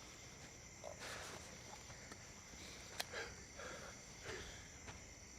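Faint, steady chirring of crickets, with a few soft clicks and rustles.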